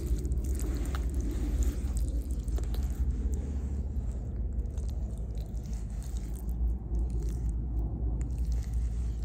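A hand squishing and smearing thick wet mud against cloth, a continuous wet squelching with scattered small sticky clicks.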